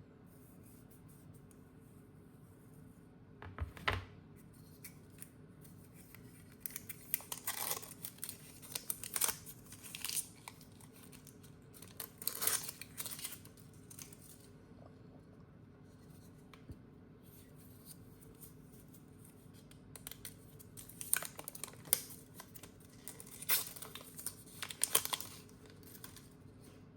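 Product packaging being torn and crinkled by hand, in several short bursts of rustling with quiet pauses between.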